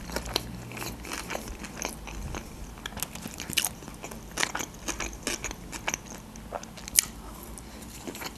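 A person chewing food with the mouth full: a steady run of short, wet mouth clicks and smacks, with one sharper click about seven seconds in.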